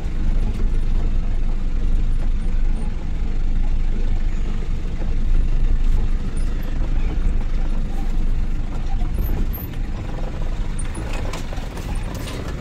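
A vehicle moving, heard as a steady low rumble, with a few light rattles near the end.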